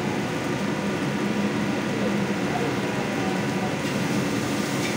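Steady roar and hum of a commercial wok station: the gas wok burner and kitchen exhaust running without a break.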